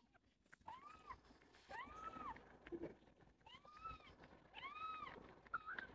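Newborn kittens, about two and a half days old, mewing faintly: four high, thin cries that rise and fall in pitch, about a second apart, then a short one near the end.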